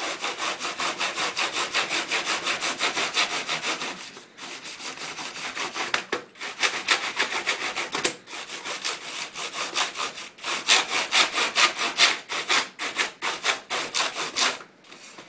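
Stiff-bristled brush scrubbing back and forth over keyboard keycaps wet with all-purpose cleaner, fast and rhythmic at several strokes a second, with a few short pauses.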